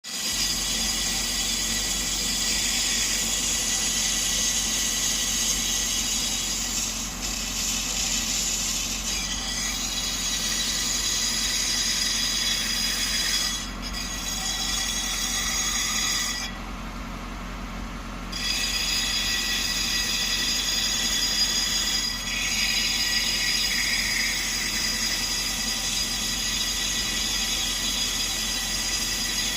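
Brake lathe turning a car brake drum as the cutting bit resurfaces it: a steady machining sound with a high ringing hiss over the motor's hum. The high part drops out for about two seconds past the middle, then comes back.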